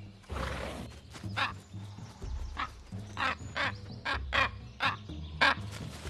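Common raven calling: a series of about eight short calls starting about a second in, over low steady background music.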